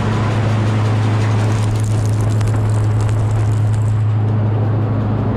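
Bizon Rekord combine harvester running at high revs with its threshing and cleaning gear turning, a loud steady drone, as it blows out leftover chaff and crop residue. A patter of short clicks joins in between about two and four seconds in.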